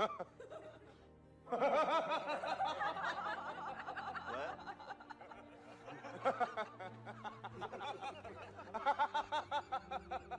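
A person laughing hard in rapid, repeated bursts. The laughter starts about a second and a half in and swells again near the end, over quiet background music.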